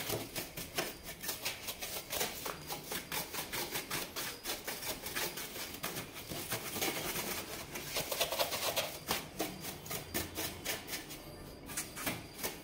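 An old bristle brush scrubbing caked dust off the motorcycle's plastic air filter housing, in quick repeated strokes, several a second, easing off near the end.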